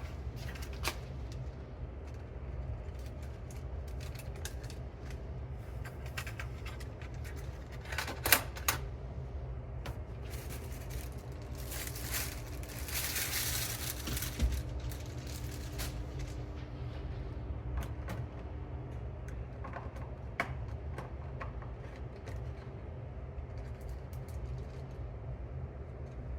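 Small parts and tools being handled on a workbench while cassette-deck belts and an idler are prepared: scattered light clicks and taps, a sharp double click about 8 seconds in, and a hissing rustle from about 12 to 15 seconds, over a steady low hum.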